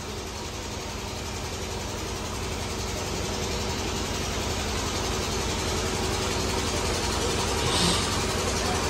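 Steady rumbling background noise with a low, even hum, slowly growing louder, and a brief hiss near the end.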